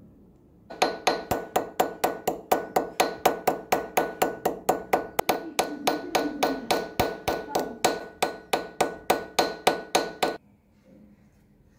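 Hammer striking a stainless steel clock-movement plate on a metal block, rapid even blows at about four a second with a metallic ring, flattening the bent plate. The hammering starts about a second in and stops abruptly shortly before the end.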